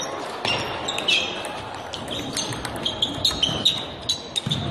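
Table tennis balls clicking as they bounce on tables and are struck by bats, from several games going on at once, over the chatter of a crowd. The sharp clicks come thickest in the second half.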